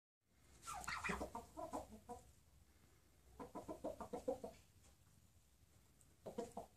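Domestic fowl calling in three bursts of rapid clucking notes: a longer one about a second in, another about three and a half seconds in, and a short one near the end.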